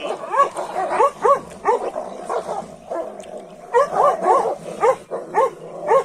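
A dog barking and yelping over and over in quick runs of short, high rise-and-fall barks, with a brief lull about three seconds in.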